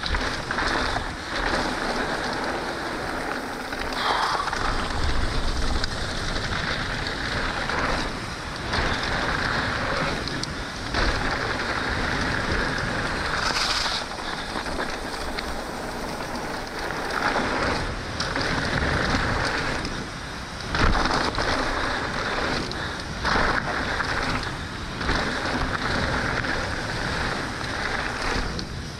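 Trek Slash 9.8 mountain bike descending a dirt trail: tyres rolling over dirt with the bike rattling and knocking over bumps, the loudest jolt about three-quarters of the way through. About halfway there is a brief high squeal from the Hayes Dominion disc brakes, whose pads the rider believes are glazed.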